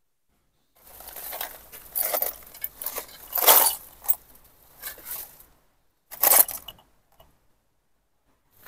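Rummaging through a rubbish bag: the bag and its contents rustle while small hard objects clink and jangle against each other. It comes in irregular handfuls from about a second in, with a last short burst after about six seconds.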